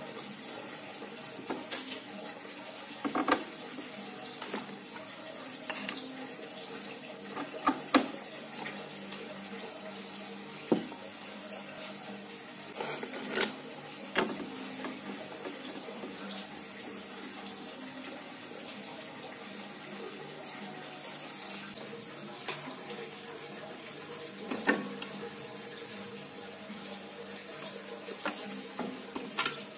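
Screwdriver driving screws that hold a power-supply circuit board to a metal chassis plate: scattered sharp clicks and knocks, the loudest about 8 seconds in, over a steady hiss with a faint hum.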